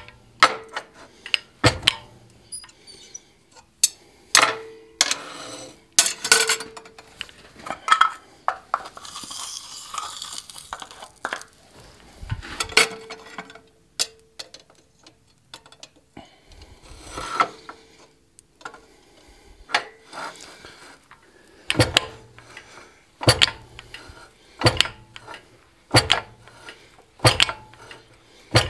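Fly press driving a chisel into a red-hot iron bar in a series of sharp metallic clanks, with tongs and steel clinking between strokes. In the last several seconds the strikes come evenly, about one every second and a half.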